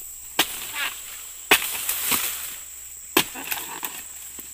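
Three sharp chopping strikes of a steel dodos (oil palm chisel) into the frond bases and fruit bunch stalk of an oil palm. Each strike is followed by brief rustling and crackling, with a few lighter knocks near the end.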